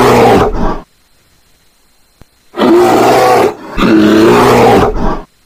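Polar bear roaring: a roar that cuts off just under a second in, then after a pause of nearly two seconds, two more long roars back to back.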